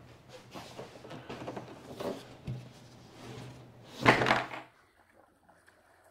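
A loaded SIC Atlantis touring paddleboard knocking against the sawhorses as it is handled, with scattered lighter knocks and a loud thump about four seconds in.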